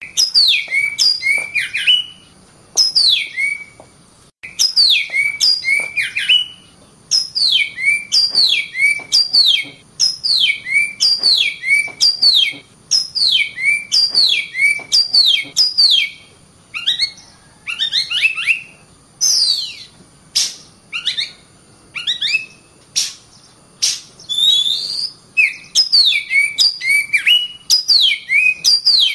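Oriental magpie-robin (kacer) singing: repeated phrases of clear, loud whistles, each note sliding steeply down, with short pauses between phrases. A little past halfway the song turns more varied, with quick rising sweeps mixed in.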